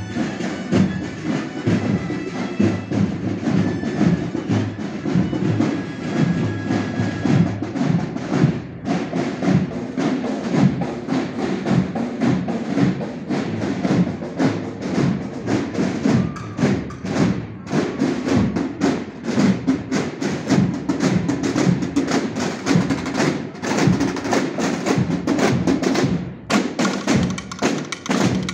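Procession drum corps playing marching drums, a steady rhythm of sharp drum strikes. Faint held tones sound under the drumming for the first several seconds.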